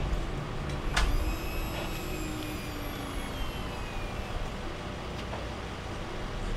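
Powered ambulance cot's lift motor whining as it raises the strapped-in patient to loading height, starting just after a sharp click and sliding slowly down in pitch for about three seconds. A steady low rumble runs underneath.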